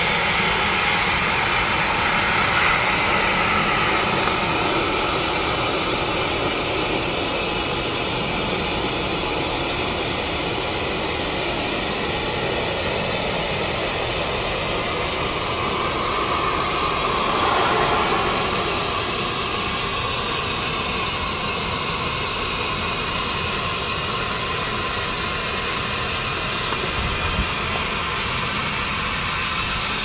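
NextBlower mini high-speed electric air pump running steadily, a continuous rush of blown air, as it inflates an air lounger through its valve.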